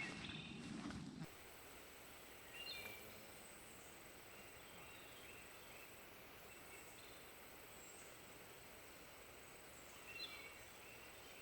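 Faint outdoor ambience: a thin, steady high-pitched insect drone over a low hiss, with short bird chirps twice, about two and a half seconds in and near the end. A brief louder sound in the first second cuts off abruptly.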